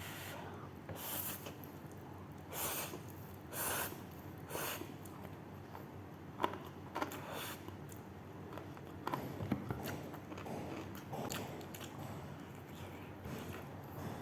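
A person eating very spicy noodles: four sharp sniffs through the nose in the first five seconds, then small clicks of chewing and eating.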